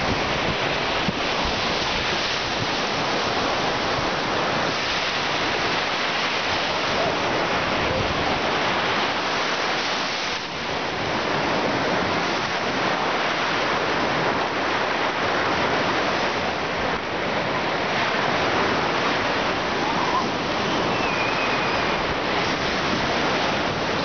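Sea surf washing onto a sandy beach, a steady rushing hiss of small breaking waves.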